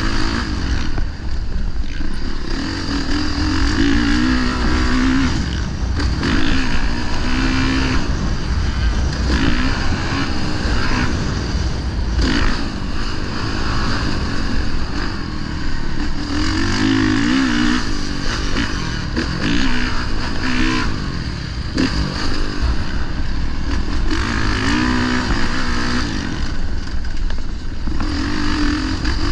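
Dirt bike engine being ridden hard, revving up and easing off again and again, its pitch climbing and dropping every few seconds over a steady low rumble.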